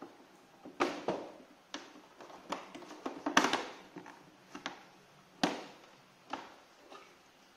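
Plastic body cover of a Yamaha Mio Soul i 125 scooter being pulled loose by hand: irregular clicks and knocks of plastic clips and panel edges, loudest about three and a half seconds in.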